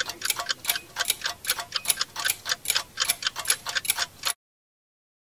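Rapid, even ticking, about five sharp ticks a second, like a fast clock. It cuts off abruptly a little past four seconds in, leaving dead silence.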